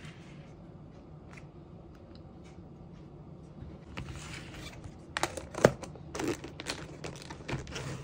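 Thin clear plastic lid being pressed and snapped onto a black plastic takeout container. After a few quiet seconds with a faint low hum, there are crinkles and a run of sharp plastic clicks, loudest about halfway through.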